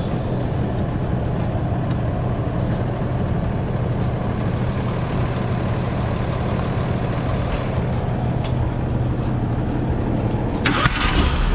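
An engine running steadily with a low, even hum. Near the end a louder, rougher sound joins in.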